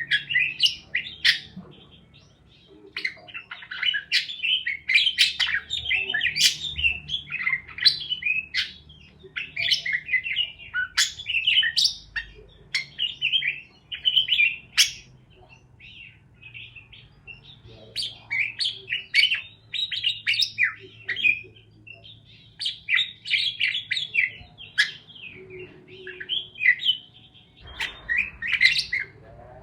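Pet parakeets (budgerigars) chirping and warbling in rapid, busy bursts with short lulls between.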